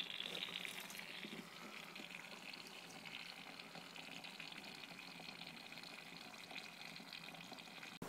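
Faint hissing trickle of refrigerant oil, driven by the last bit of refrigerant pressure, running from a recovery cylinder through a hose into a plastic oil drain pan; it eases off after about a second and carries on weaker.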